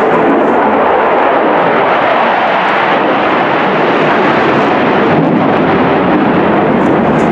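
Single-engine F-16 fighter jet flying a display pass, its engine a loud, steady rushing roar.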